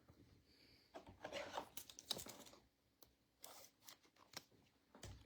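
Faint tearing and crinkling of a foil trading-card pack wrapper being opened by hand, in a few short bursts.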